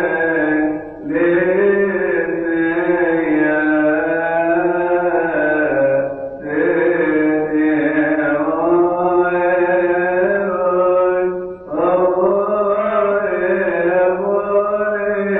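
Coptic Orthodox liturgical chant in a man's voice range: long, drawn-out sung phrases with held notes that bend slowly in pitch. There are brief pauses for breath about a second in, around six seconds and near twelve seconds.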